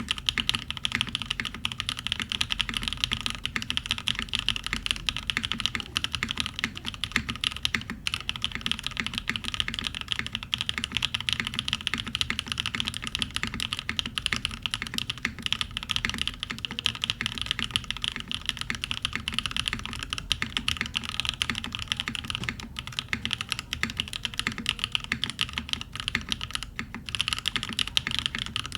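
MC65 top-mount mechanical keyboard with custom-lubed Cream Soda switches, a carbon-fiber plate and GMK keycaps, typed on in a fast, continuous stream of keystrokes, with short pauses about eight, sixteen and twenty-seven seconds in.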